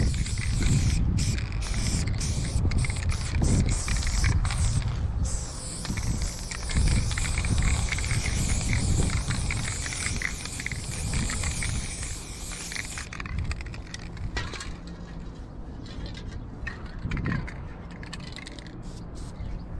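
Aerosol spray-paint can hissing in long strokes with short breaks, over a low rumble. About 13 seconds in the spraying stops, leaving scattered short crunching and handling noises.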